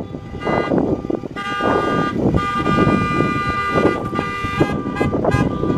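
Car horns honking from a caravan of passing cars, several horns overlapping: short toots near the start and end, and a long held honk of several tones at once through the middle. The noise of the passing cars runs underneath.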